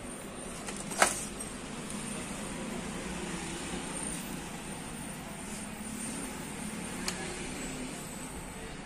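A hand handling the plastic print-head carriage of a Canon Pixma G-series ink-tank printer: a sharp click about a second in and a fainter one near the end, over a steady low background hum.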